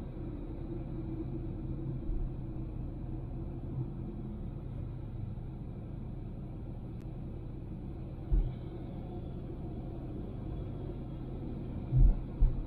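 Honda Civic driving: a steady low rumble of road and engine noise, with a brief low thump about eight seconds in and two more near the end.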